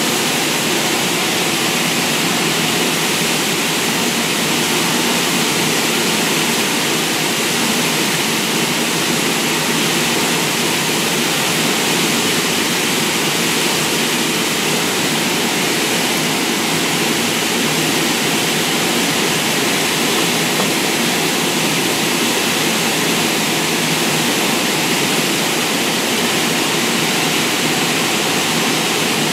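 Steady rushing air from an indoor shooting range's ventilation system, an even noise that holds at one level throughout with no shots or clicks.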